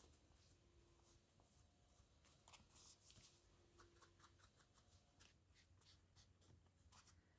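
Very faint brushing and light dabbing of a sponge against paper edges, a scatter of soft scratchy strokes just above near silence.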